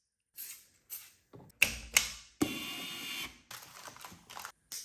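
A quick series of clicks and knocks from hands handling small parts, with one scratchy, noisy stretch of about a second in the middle.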